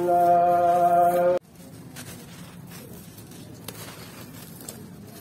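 A loud held musical tone cuts off abruptly about a second and a half in. After it, dry sand-and-cement mix and chunks crumble and trickle through hands, faint and gritty, with a few small clicks.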